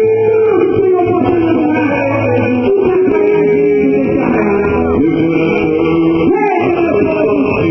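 Quadrilha junina music played loud: a male voice singing over a band with a steady bass.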